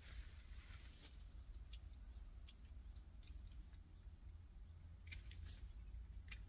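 Faint, scattered snips and clicks of branches being pruned on a young durian tree, a few strokes a couple of seconds apart with two close together near the end. Under them run a steady high insect hum and a low rumble.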